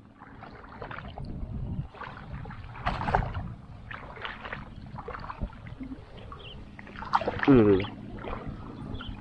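Shallow water in a flooded rice paddy sloshing and splashing in irregular bursts as someone wades through it among floating water plants. About seven and a half seconds in, a short sound falling in pitch is the loudest thing heard.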